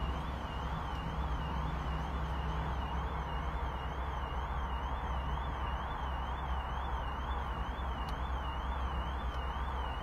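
A distant electronic siren, its pitch warbling up and down several times a second without a break, over a steady low rumble.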